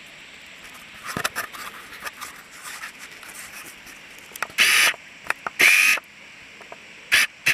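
Steady background buzz of insects in rice paddy fields, with a few light clicks. Two loud rasping bursts of about half a second each, about four and a half and five and a half seconds in.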